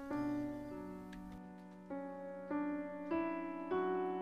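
Quiet piano music, slow held chords with a new chord struck every half second or so.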